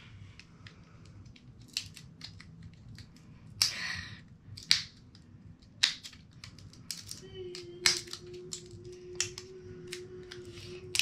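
Plastic wrapping of a toy surprise ball being peeled and picked at by hand: scattered sharp clicks and crinkles with a few short tearing rustles. A faint steady hum comes in about seven seconds in.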